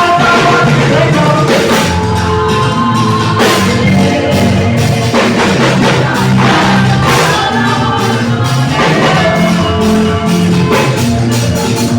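Live band playing loud music, with drum kit and a low bass line under singing.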